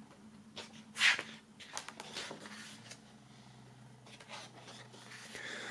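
A heavy page of a hardbound photo book being turned: a short paper swish about a second in, then a few light paper rustles and taps.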